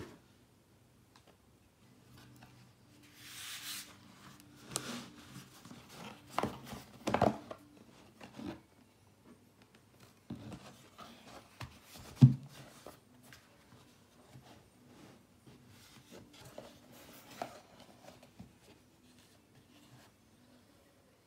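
Cardboard watch-box packaging being handled: a short scraping slide, then scattered taps and knocks as boxes and lids are lifted and set down, the loudest a single sharp knock a little past halfway.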